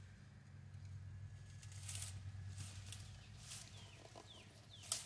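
Faint rustling and snapping of dry, tangled vines being dragged out of a brush pile with a long-handled tool, with a sharp crack near the end. A bird gives a run of short falling chirps in the last second or so, over a low steady hum.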